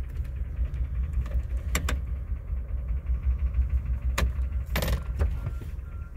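Toyota Tundra pickup engine idling steadily, heard from inside the cab, with a few sharp clicks and knocks. A faint repeating tone starts near the end.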